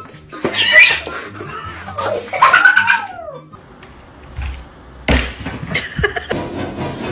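Cat meowing and yowling, with a long drawn-out call rising and falling in pitch about two and a half seconds in. A sudden loud noise follows about five seconds in.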